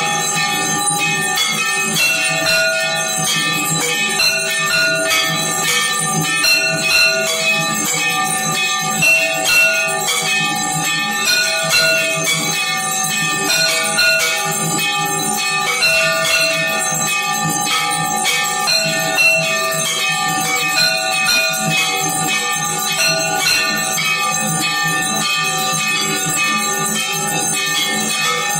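Hindu temple bells rung rapidly and without pause during aarti, many overlapping strikes blending into a continuous ringing.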